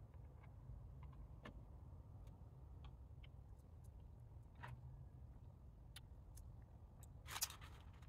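Near silence with faint, scattered clicks and a brief crackly rustle about seven seconds in.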